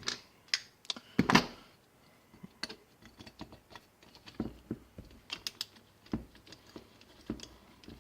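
Irregular clicks and light knocks of hand tools and small metal engine parts being handled while a weed eater engine is taken apart, with one louder knock about a second in.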